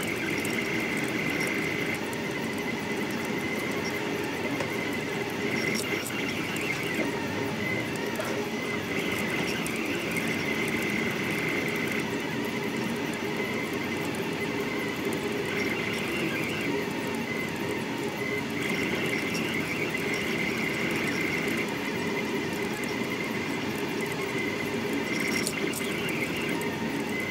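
Stepper motors of a delta Rostock 3D printer driving the effector through a fast print: a continuous whine with a high tone that swells and fades every few seconds as the moves change.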